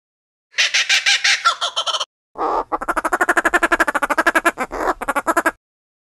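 Roller call: harsh, rattling squawks. A short burst comes first, then a longer run of rapid notes, about ten a second, that stops about five and a half seconds in.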